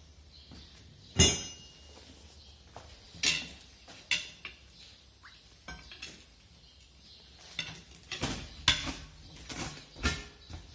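Steel tire pry bars clinking and knocking against a steel truck wheel rim: separate sharp metal strikes spaced out over several seconds, the first one about a second in ringing briefly.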